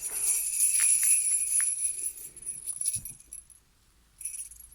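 Jingle bells shaken steadily, stopping about three and a half seconds in, then a brief shake again near the end. A soft low knock comes just before they stop.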